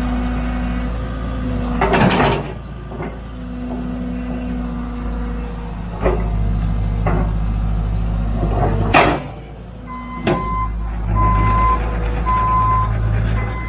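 A heavy machine's engine running steadily, with several sharp clanks and knocks. A beeping alarm sounds in short pulses during the last few seconds.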